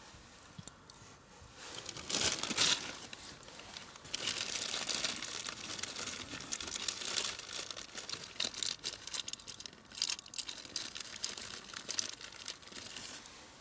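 Packaging crinkling and rustling as it is handled, with many small irregular crackles; loudest about two seconds in, then continuing unevenly.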